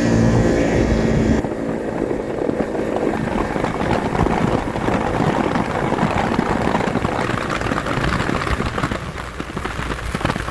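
Wind rushing hard over the phone microphone at speed, over the Arctic Cat Alterra 600 ATV's single-cylinder engine running flat out. The engine's steady pitch is plain for about the first second and a half, then the wind rush mostly covers it.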